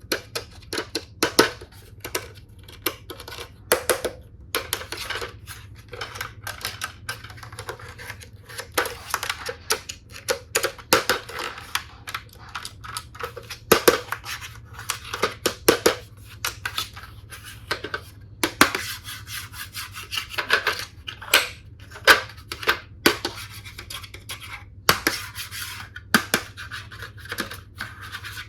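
Hands handling plastic toy tool pieces and their packaging: irregular sharp clicks and taps, with scratching and rubbing in between.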